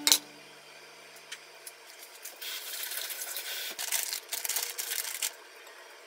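A knife knocks sharply on a wooden cutting board, then, from about two seconds in, some three seconds of rasping scrapes and rubbing as the sliced meat-wrapped soft-boiled eggs are handled.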